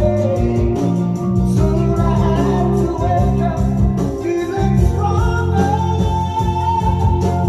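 Rock song with singing and guitar playing back over large floor-standing hi-fi loudspeakers, with an outboard analog EQ switched into the signal chain.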